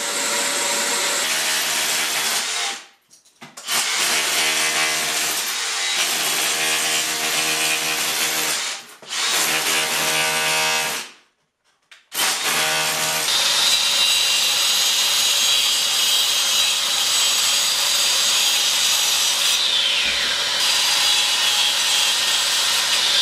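Power saw cutting grooves, stopping briefly three times in the first half, then running without a break.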